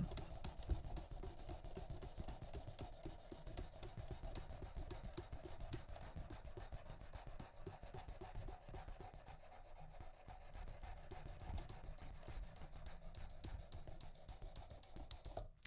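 Knife blade being stroked along the 600-grit stone of a Worksharp Precision Adjust sharpener: a faint, continuous scraping rub.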